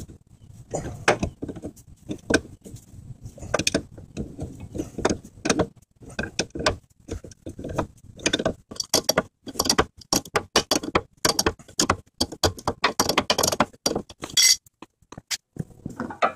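Large adjustable wrench clinking and clanking on a Chevy Tahoe's inner tie rod and the nearby suspension parts while it is worked to loosen the tie rod: many short, irregular metal clinks.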